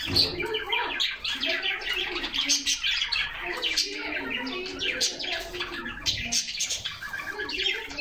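A flock of caged canaries chirping and twittering together in a dense, overlapping chorus, with a lower wavering call repeating underneath.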